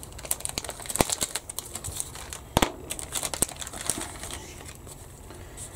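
Clear plastic bag crinkling and rustling as it is handled and opened, with a few sharp clicks among the crackles; the crinkling thins out after about four seconds.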